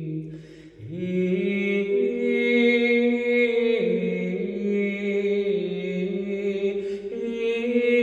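Sung chant in several voices, holding long notes and stepping from pitch to pitch, with a brief break about half a second in.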